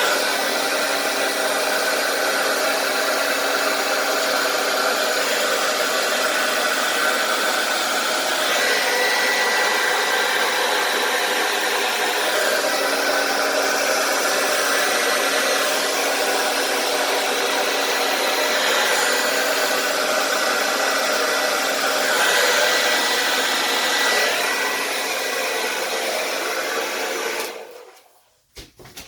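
Handheld hair dryer running steadily: a continuous rush of air with a faint whine. It cuts off abruptly near the end.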